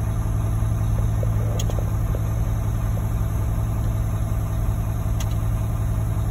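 Heavy machine engine running steadily at a constant speed, a low even drone from the equipment working the concrete load.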